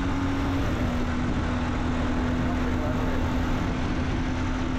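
BMW R1250GS boxer-twin engine running on the move, a steady drone over wind and road noise, with a steady tone that drops slightly in pitch about half a second in. This is the engine noise the rider says appears at about 4,500 rpm and grows with use, which the dealer called normal.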